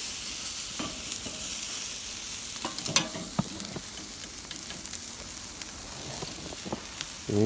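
Tri-tip sizzling as it sears directly over red-hot charcoal in a Weber kettle grill: a steady hiss with scattered sharp pops, the loudest about three seconds in.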